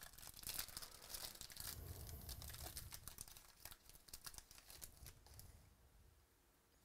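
Faint crinkling and tearing of a trading-card pack's foil wrapper being ripped open, crackling for about five seconds and then dying away.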